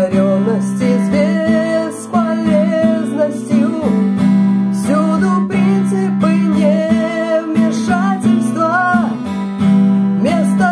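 A woman singing a slow melody while strumming an acoustic guitar.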